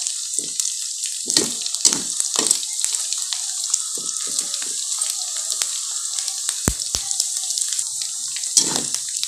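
Diced meat frying in hot oil in a wok, a steady sizzle as its fat renders out, with a spatula scraping and knocking against the pan at irregular moments as it is stirred.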